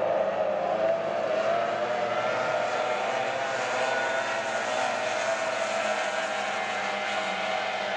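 Racing outboard engines running at high revs, a steady drone that drifts slightly in pitch, over a hiss of rushing water and wind.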